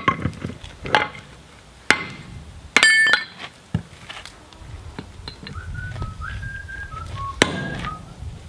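Sledgehammer blows on a steel drift being driven through the square hardie hole of a striking anvil, about one a second for the first four seconds, one of them ringing brightly about three seconds in. Then someone whistles a few notes, and one more blow lands near the end.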